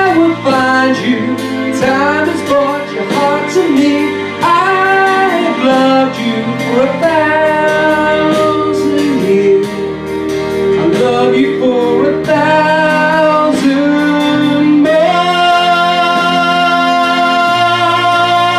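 A man singing into a microphone over an instrumental backing, his melody rising and falling phrase by phrase, then holding one long note near the end.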